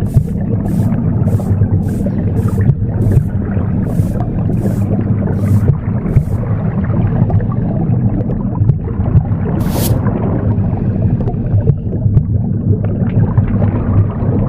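Womb sound, a steady low whooshing rumble, mixed with a broom sweeping in short hissing strokes about twice a second. The strokes stop about six seconds in, and a single stroke comes near ten seconds.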